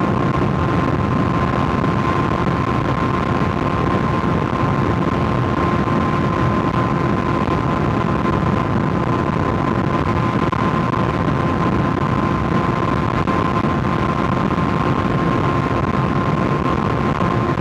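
Kawasaki ZX-6R 636's inline-four engine at a steady highway cruise, its pitch holding even throughout, over wind and road noise.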